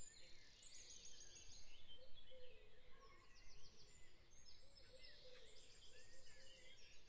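Faint dawn chorus of many small birds chirping and calling over each other, from a field recording.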